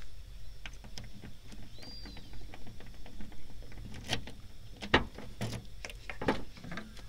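A series of short knocks and clicks over a faint low rumble, the louder ones coming in the second half.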